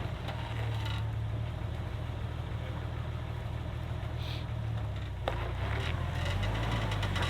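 Jeep engine running steadily at low speed while crawling, with a sharp click about five seconds in and a few lighter ticks after it.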